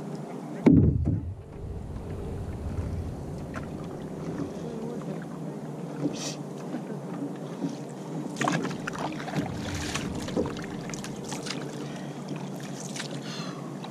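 Water lapping and trickling along the hull of a two-person outrigger canoe gliding on calm water, with paddle strokes splashing in the second half as paddling starts again. A brief loud low thump about a second in.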